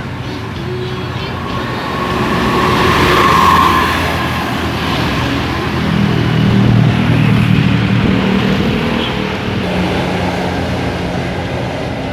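Large buses driving past one after another, engine and road noise swelling to a loud peak about three and a half seconds in. A second loud pass comes from about six seconds, with a steady low tone held until about nine and a half seconds.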